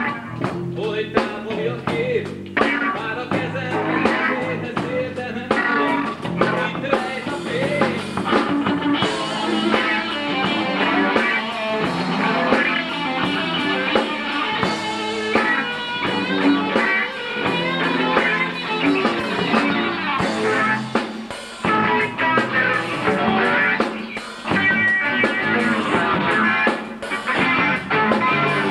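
Rock band playing live: electric lead guitar, bass guitar and drums through amplifiers, picked up by a VHS camcorder's microphone.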